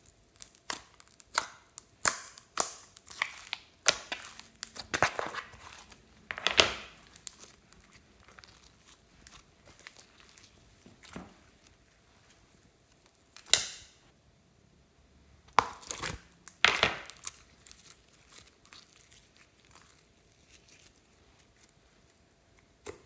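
Sticky slime crackling and popping as it is peeled off a plastic tray, with dense crackles over the first several seconds, then a few separate sticky pops and squelches as the slime is piled into a glass dish.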